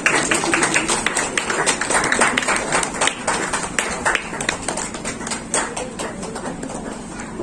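A crowd applauding, dense claps that thin out over the last few seconds, with some voices underneath.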